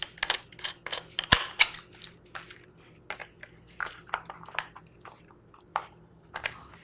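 Metal and plastic parts of a Nelspot 007 paintball pump marker clicking and knocking as they are handled and fitted together. The sharp clicks come thick and fast for the first two and a half seconds, then more sparsely.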